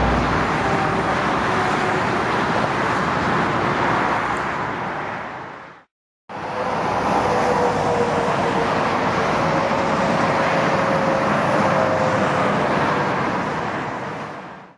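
Jet airliner engine noise in two takes. First a four-engined Airbus A340 landing, its steady jet rush fading out about six seconds in. After an abrupt break, a Boeing 747 on final approach, a steady jet rush with a faint, slowly falling whine.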